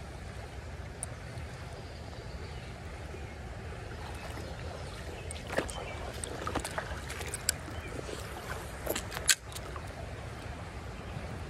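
Shallow creek water running over stones, with a steady low rumble underneath. About halfway through comes a run of short, sharp clicks and ticks that lasts a few seconds.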